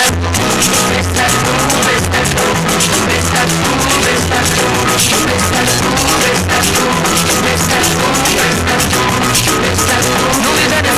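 Rock music with a drum kit: the full band comes in right at the start and keeps a steady driving beat.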